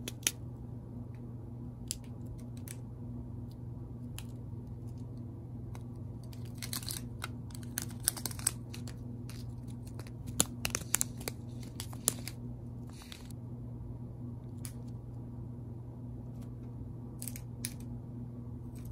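Small clear plastic zip bags of square resin diamond-painting drills crinkling and crackling as they are handled. The crackles come in scattered bursts, busiest in the middle, over a steady low hum.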